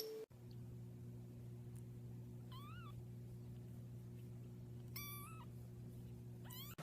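A cat meowing: two short high meows, the first rising and falling, with a third beginning near the end, over a faint steady low hum.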